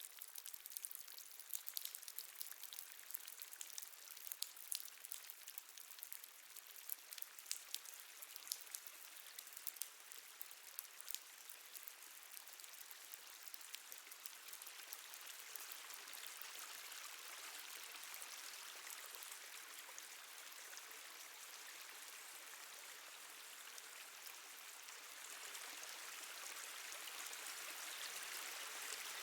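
Water dripping in a cave: many quick, irregular drops at first, which merge into a steady trickling hiss that grows a little louder near the end.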